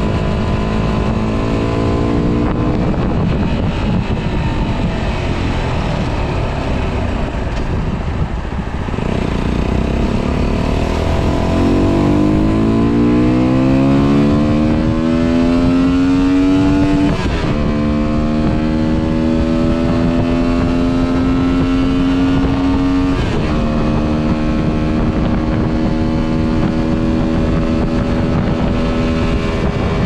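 125cc motorcycle engine running under way, with wind rushing over the action camera's microphone. The engine note climbs steadily as the bike accelerates, drops sharply at a gear change a little past halfway, dips again later, and otherwise holds steady at cruising speed.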